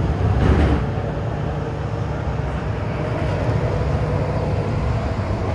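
Steady low rumble of an MTR M-Train electric multiple unit running past a station platform, heard from inside the carriage. A brief swish rises about half a second in.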